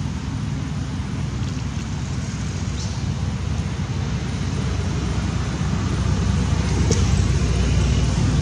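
A steady low mechanical rumble with a faint hiss over it, growing somewhat louder over the last few seconds.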